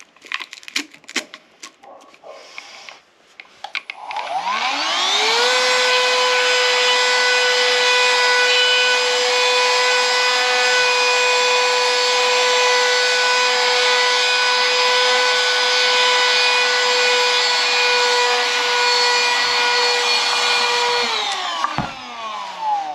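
A few clicks and knocks, then the XREXS handheld cordless vacuum cleaner's small motor spins up with a rising whine about four seconds in. It runs steadily, vacuuming sand from the floor, and winds down with a falling pitch near the end.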